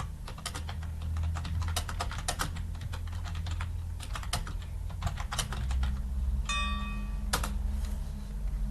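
Computer keyboard typing: uneven runs of key clicks that thin out near the end, with a brief high tonal chirp about two-thirds of the way through and a steady low hum underneath.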